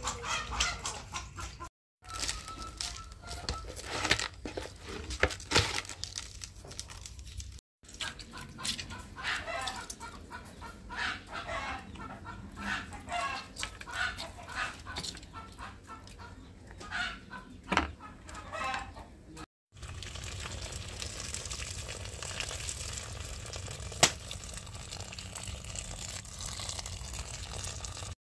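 Chickens clucking with a rooster crowing, over the small noises of hands working food in basins. From about two-thirds of the way in, a steady rush of water being poured into a pot.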